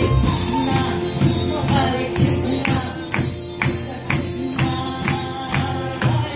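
Live kirtan band playing: voices, sitar and cello over hand percussion that keeps a steady beat of about four strokes a second.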